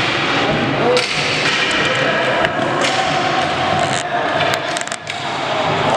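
Floor hockey play in an echoing indoor rink: sharp knocks of sticks and ball a few times, over a steady din of voices.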